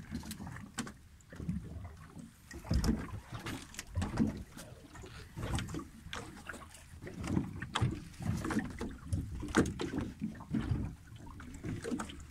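Water lapping and slapping against the hull of a small fishing boat, with irregular knocks and splashy surges.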